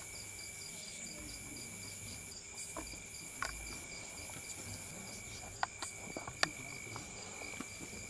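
Night insects, crickets, chirping steadily: a continuous high trill with a fast, even pulsing chirp above it. A few short sharp clicks stand out about two-thirds of the way through.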